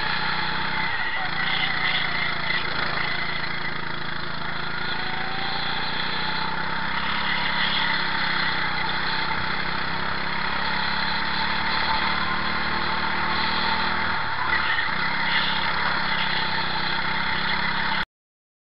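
Go-kart engine running at racing speed, heard from a helmet camera on the driver, with a steady hiss over it. The engine note dips briefly about a second in and again around fourteen seconds, and the sound cuts off abruptly near the end.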